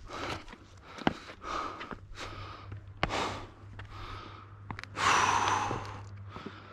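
A hiker breathing hard, a quick series of heavy breaths close to the microphone while climbing a steep trail, with a few sharp clicks and a louder rush of breath or air about five seconds in.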